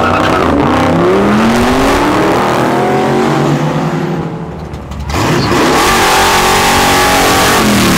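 Car engines accelerating hard from a stop, revving up in pitch and stepping down between gear changes. About five seconds in the sound dips briefly, then another car pulls away, its engine rising again.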